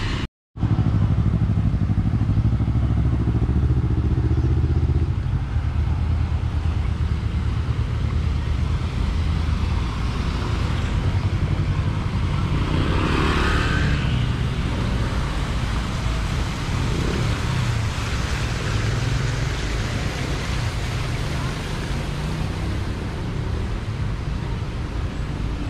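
Street traffic of motorbikes and cars, with a steady low engine hum that is strongest in the first few seconds. About thirteen seconds in, a motor scooter passes close by, rising and fading away.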